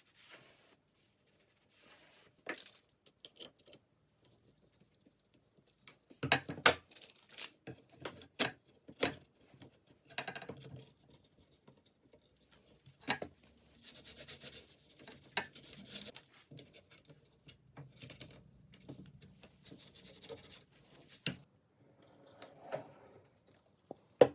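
Small objects being handled on a workbench: scattered sharp clicks and knocks, a quick cluster of them about six seconds in, with stretches of light scraping and rubbing later on.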